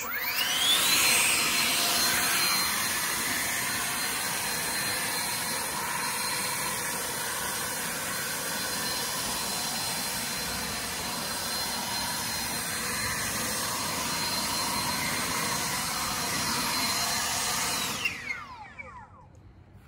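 Aoetree 20-volt brushless cordless leaf blower spinning up with a rising whine, running steadily with a high fan whine over the rush of air, then winding down with a falling whine about 18 seconds in.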